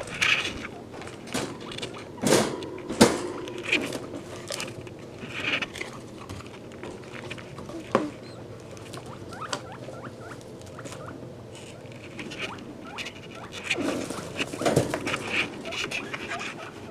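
Guinea pigs moving about and rustling in the hay of their cage, with a few sharp knocks and short high squeaks. The loudest knocks come about two and three seconds in.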